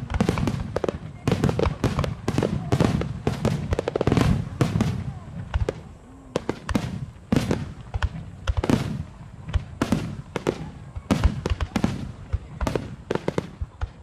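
Aerial firework shells bursting in quick succession: many sharp booms a few a second, often overlapping, with a brief lull about six seconds in.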